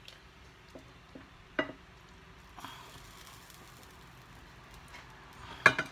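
Wooden spoon scooping and scraping sauced pasta out of a saucepan onto a plate, with a few soft clicks and one sharp knock near the end.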